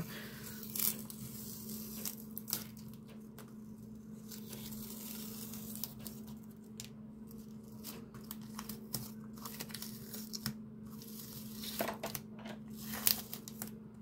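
Masking tape being slowly peeled off the edges of watercolour paper, with intermittent crackling and tearing, busier near the start and again near the end.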